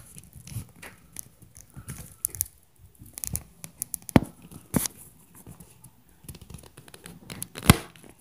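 Irregular thumps and knocks of footsteps stomping on the floor of the apartment above, with several loud, sharp hits about four seconds in and near the end, among rustling and clicking.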